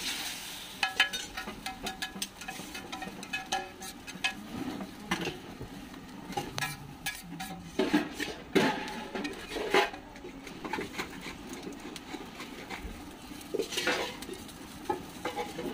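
Metal spatula and scraper clanking and scraping on a flat iron griddle (tawa) as parathas are flipped and seekh kabab is chopped on its surface: irregular clinks, taps and scrapes, with a few louder clanks about halfway through and near the end.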